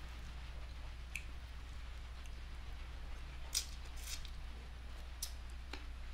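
Close-up eating sounds from hand-eating: a few sharp, wet clicks and smacks of fingers and mouth on rice and fried fish, the loudest about three and a half seconds in, over a steady low hum.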